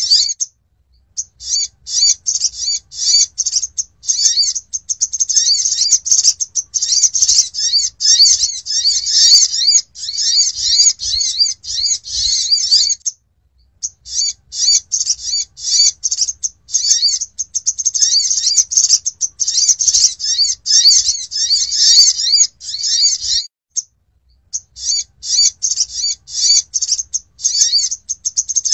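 Olive-backed sunbird calling: rapid, high-pitched chittering twitters repeated in long runs. The calls break off briefly about half a second in, again near the middle, and again a few seconds before the end.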